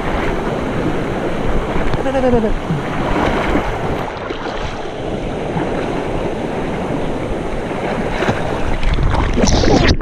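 Fast, shallow river water rushing and splashing against legs and boots dragged through it, with wind buffeting the microphone.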